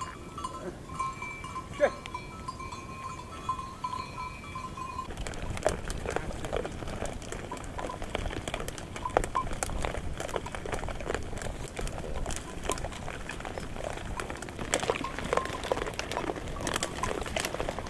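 A herd of goats and sheep: scattered clatter of hooves and occasional animal calls. For about the first five seconds a steady high tone sounds over it, then stops suddenly.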